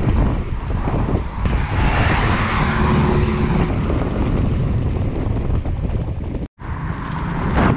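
Wind buffeting the microphone of a camera on a road bike while riding, a loud, steady rush with low rumble. It cuts out abruptly for a moment about six and a half seconds in.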